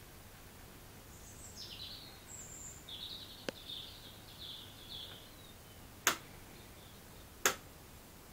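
Birds chirping in short bursts over a faint low hum. About six seconds in come two sharp clicks, a second and a half apart.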